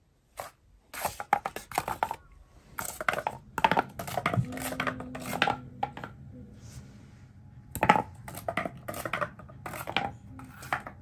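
Light cardboard pieces clicking and tapping against a hard floor in several short clusters of quick knocks.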